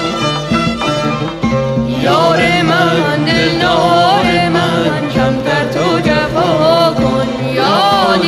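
Middle Eastern song. Instrumental accompaniment plays, and about two seconds in an ornamented singing voice comes in, sliding and wavering between notes over it.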